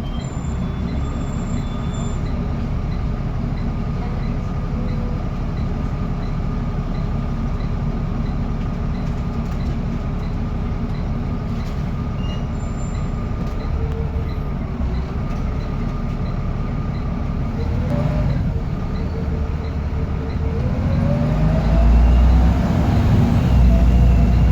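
Bus engine running with a steady turbocharger whistle over the drive noise. Near the end the engine pulls harder: it gets louder and a whine rises in pitch.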